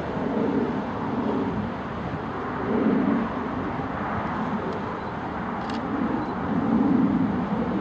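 Low rumble of an approaching train's diesel locomotives heard from a distance, swelling and easing every second or two, with a couple of faint ticks near the end.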